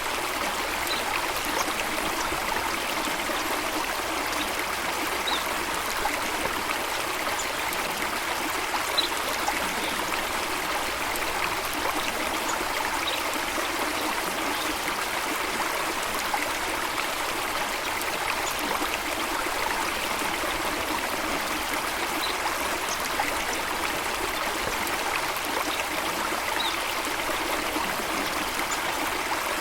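Steady rushing of running water from a small waterfall, even and continuous, with a few faint brief high chirps scattered through it.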